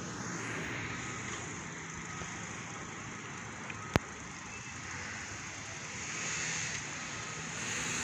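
Road traffic with a fire engine driving up the street, no siren sounding; the noise swells around six seconds in and again near the end. A single sharp click about four seconds in.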